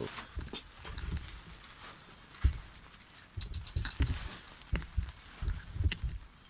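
Irregular knocks, clunks and clicks of the sliding mitre saw and its parts being handled, with no motor running.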